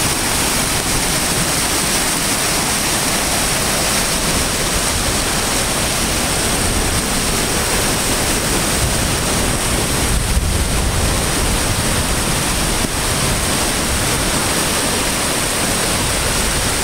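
Flash-flood water rushing and churning past, a loud, steady rush of white water.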